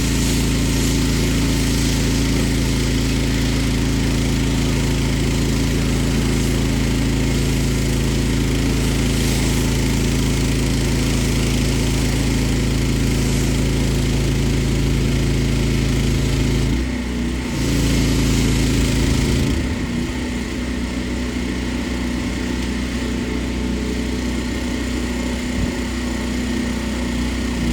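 Small engine of a pressure washer running steadily under a hiss, its note dipping briefly about 17 seconds in and running weaker from about 20 seconds in.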